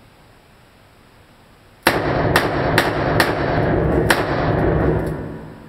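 A Ruger .44 Magnum fired about five times in quick succession at an indoor range, each loud shot ringing on in the room's echo, with a longer pause before the last shot.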